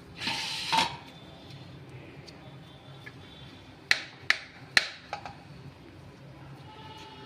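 Small kitchen knife cutting boiled potato over a plate: a short scraping rustle near the start, then three sharp clicks about half a second apart as the blade strikes the plate, a little past halfway.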